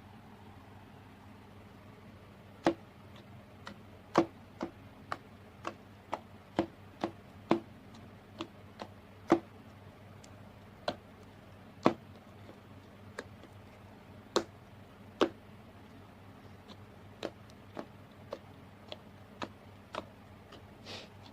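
Slime being worked by hand: irregular sharp pops and clicks, some much louder than others, about one or two a second.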